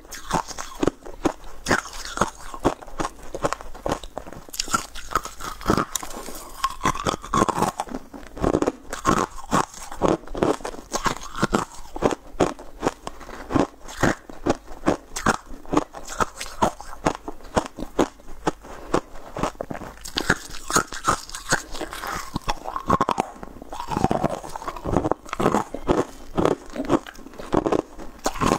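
Close-miked crunching and chewing of crisp blue swirled cookies. The bites come as a dense run of crackles and clicks, with short wetter chewing sounds in between.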